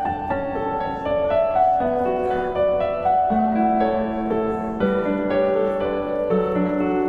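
Background piano music: a gentle melody of overlapping notes.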